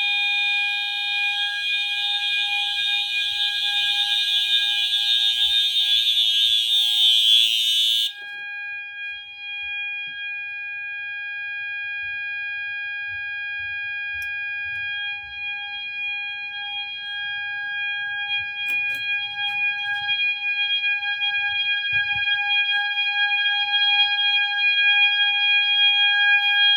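Two fire alarm horn strobes, a System Sensor MASS and an FCI, sounding together, very loud. The horns give a continuous steady tone with a harsh buzzing layer over it. The buzz cuts out suddenly about eight seconds in, leaving one steady pitched horn tone.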